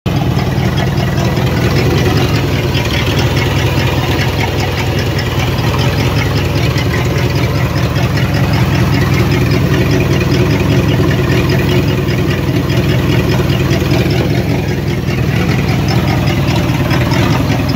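1963 Cadillac V8 idling steadily with its original belt-driven air-conditioning compressor engaged and pumping, a fast, even ticking on top of the steady engine sound.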